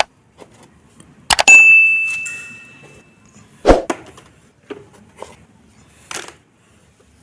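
Plastic toy animals being dropped into a basket: a handful of separate knocks and clacks, with one loud strike about a second and a half in that rings on as a clear ding, fading over a second or so.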